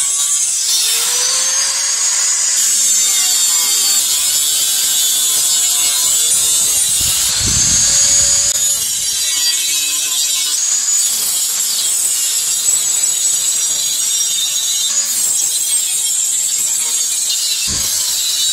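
Handheld angle grinder with an abrasive cut-off disc cutting through chainsaw bar steel: a steady, loud, high-pitched whine and grinding hiss, its pitch wavering as the disc bites under load.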